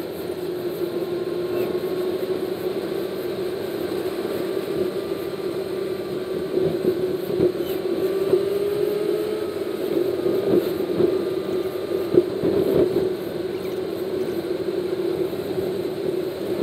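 Vehicle cabin noise while driving at road speed: steady engine and tyre noise with a constant drone, and a few knocks or bumps in the middle.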